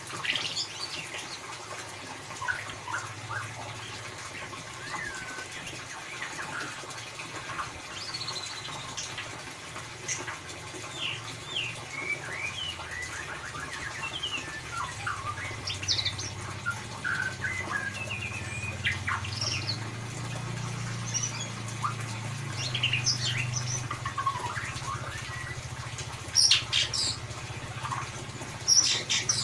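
White-rumped shama singing in the busy 'ngeriwik' style: a continuous run of short, quick, varied chirps and sliding whistles, densest near the end. A low hum sits underneath from about the middle on.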